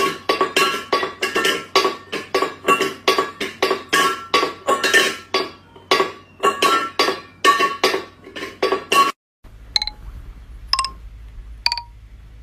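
Rapid metallic clinking taps, about three a second, each with a short ringing note, which stop suddenly after about nine seconds. A few single high pings follow, spaced about a second apart.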